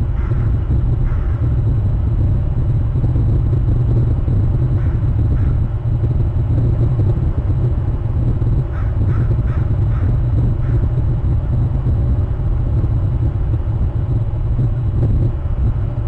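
Steady low rumble of wind buffeting an outdoor microphone. Short bird calls come through it now and then, with a quick run of four or five about nine seconds in.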